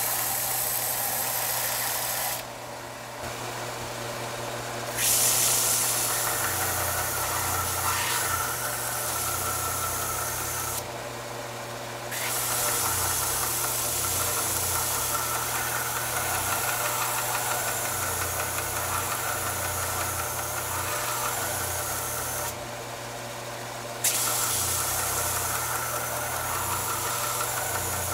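6x48 belt sander running with a steady motor hum while a steel spear tip is ground against the abrasive belt, a bright hissing grind. The grinding drops out three times for a second or two as the blade is lifted off, leaving only the motor and belt running.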